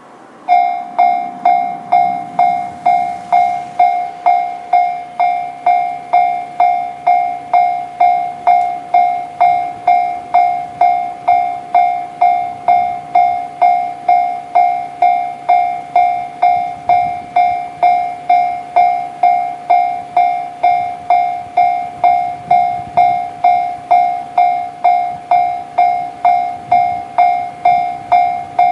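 Japanese railway level-crossing warning bell, the JR standard electronic alarm tone, starting about half a second in and ringing steadily at a little under two strokes a second. It signals that a train is approaching and the crossing barriers are lowering.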